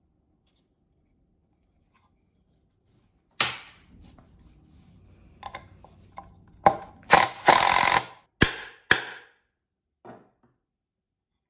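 Cordless impact driver driving a screw through a plywood base into a wooden post, in several short loud bursts with one longer one, between about seven and nine seconds in. A single knock of wood comes a few seconds earlier.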